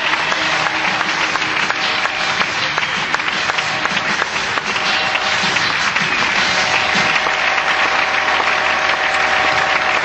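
Large audience applauding steadily, a dense mass of clapping, with music faint underneath.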